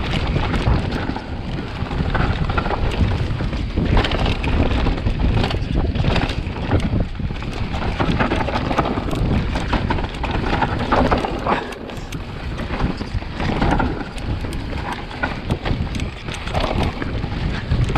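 Vitus Sommet CRX full-suspension mountain bike descending a dirt trail at speed: tyres rolling over dirt and roots, with the chain and frame clattering over bumps and wind buffeting the camera microphone.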